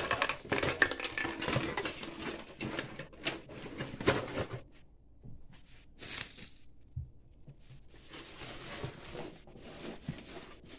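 Rustling and light clattering of packaging and plastic items being handled in an open cardboard box, busy for the first four or five seconds, then quieter with scattered rustles.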